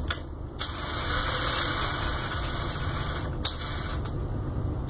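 DeWalt cordless drill running in spurts with a belt winding onto the spinning bit. A steady high whine starts about half a second in and runs for about two and a half seconds, then comes a brief blip, a pause of about a second, and it starts again at the end.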